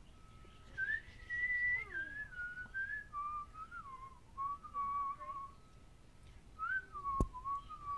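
Whistling: a single clear pitch stepping and gliding up and down in short phrases, with a sharp click about seven seconds in.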